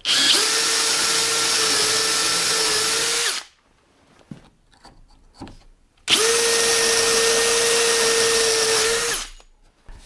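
Cordless drill with an 8 mm bit drilling into wood through a clamped drilling template: two runs of about three seconds each, the motor whining at a steady pitch, with a pause of about three seconds between them holding a few faint knocks.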